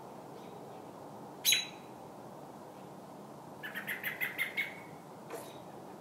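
American robin distress calls: one sharp, loud call about a second and a half in, then a rapid run of about eight notes around four seconds in, and a faint single note near the end.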